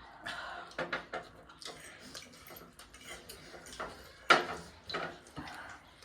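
Tableware clattering as people eat fast: scattered short clinks and knocks of cutlery and plates, with one loud sharp clatter about four seconds in.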